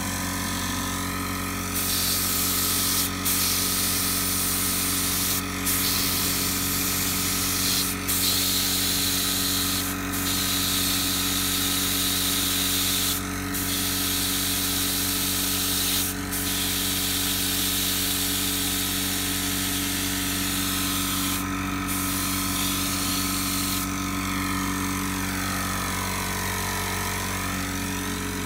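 Paint spray gun hissing in long passes of matte white tractor paint onto a truck body, cut by short pauses every few seconds as the trigger is let off. A steady motor hum runs underneath. The spraying stops near the end while the hum goes on.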